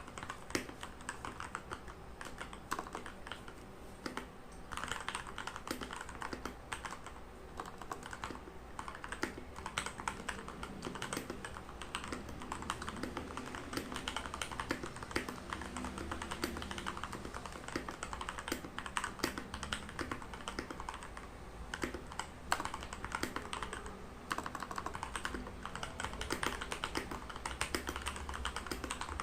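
Continuous typing on a Redragon Kumara mechanical keyboard with lubed Outemu Red linear switches: a steady, uneven stream of key clicks with occasional louder strokes.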